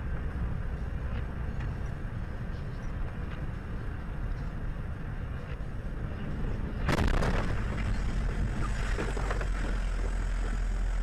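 In-vehicle dashcam road noise while driving on a snowy highway: a steady low rumble of engine and tyres. About seven seconds in it jumps to a louder rushing noise that holds on.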